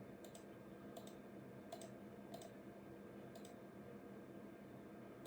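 Macintosh SE mouse button clicked a handful of times at uneven intervals, picking through desktop patterns in the control panel, over a faint steady hum from the running computer.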